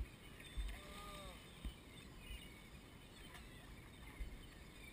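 Faint seabird cries, a few short arching calls about a second in, over a low steady outdoor hiss, with several dull low thumps.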